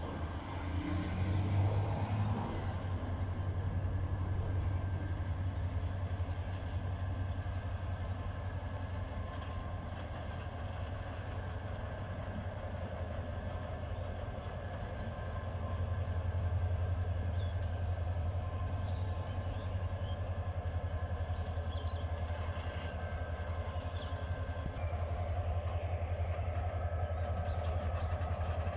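Class 35 GM-EMD diesel-electric locomotive running as it moves slowly through the yard: a steady low engine drone that swells about halfway through and again near the end.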